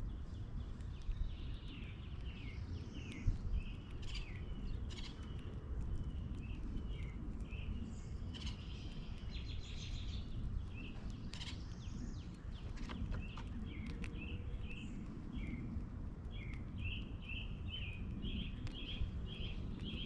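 Small backyard birds chirping and calling in many short notes, coming in a quicker series near the end, over a steady low rumble of background noise, with a few sharp clicks, the loudest about three seconds in.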